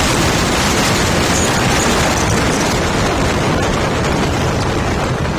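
Wind rushing over the microphone of a moving motorcycle: a loud, steady noise with the bike's engine running faintly underneath.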